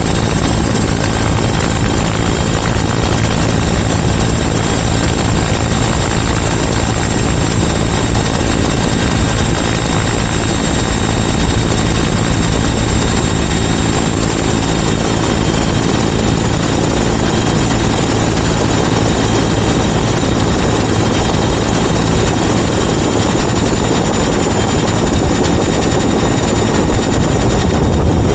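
Helicopter in flight, its rotor and engine running steadily, heard up close from a camera mounted on the outside of the airframe. A low hum and a thin high whine hold steady over the noise.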